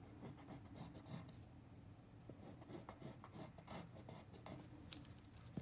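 Faint, irregular scratching and rubbing of pencil work on paper as an oversized drawn eye is reworked.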